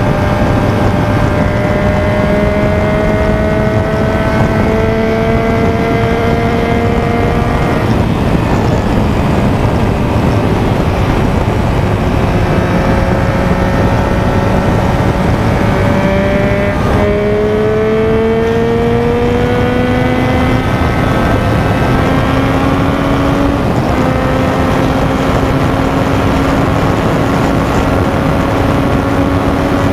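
Motorcycle engine pulling at highway speed, its pitch climbing slowly and shifting at a few gear changes, under a heavy rush of wind and wet-road noise.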